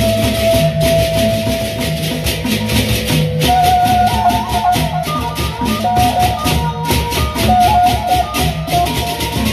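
Sasak gendang beleq gamelan playing: a dense, rapid chatter of clashing hand cymbals over a row of small kettle gongs, which carry a stepping melody from about three seconds in, with a low repeating beat underneath.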